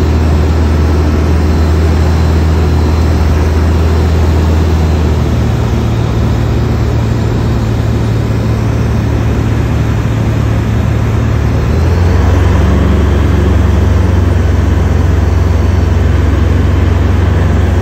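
Engine and propeller of a high-wing light aircraft in flight, heard from inside the cabin as a loud, steady drone with a rushing haze over it. The engine note shifts about five seconds in and again about twelve seconds in, where it gets a little louder.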